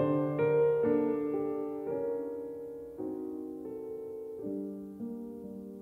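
Background solo piano music in a slow classical piece, with notes struck about twice a second and left to ring, growing gradually softer.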